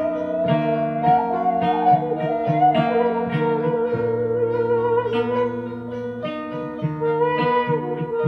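Instrumental background music: a run of plucked notes under a sustained, gently wavering melody line.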